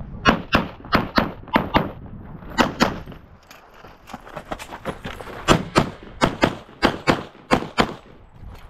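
Rapid pistol fire from a single-stack semi-automatic pistol: shots in quick pairs, a run of them, then a pause of about two seconds while the shooter moves, then another run of paired shots.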